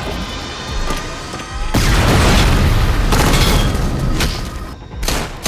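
Film soundtrack: a long, deep explosion boom starts a little under two seconds in and lasts about three seconds, over dramatic orchestral score, with another short hit near the end.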